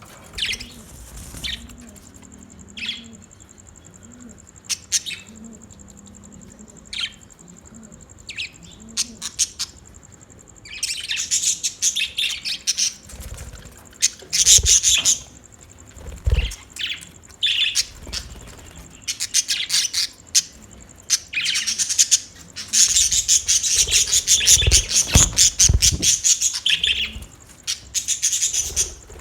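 Budgerigars chirping and chattering: scattered single calls at first, then from about ten seconds in long bursts of rapid, busy warbling chatter that grow denser toward the end.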